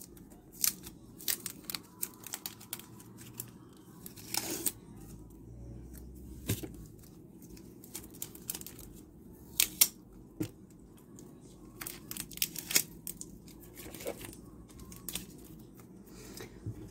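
Hands peeling tape off plastic photocard sleeves and handling the crinkly plastic: irregular short rips and crackles.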